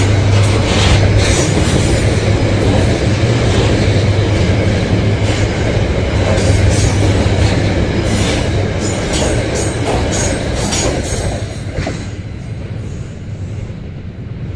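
Freight train of loaded cement hopper wagons rolling past close by: a steady heavy rumble of steel wheels on rail with repeated sharp clacks. It fades over the last few seconds as the end of the train goes by.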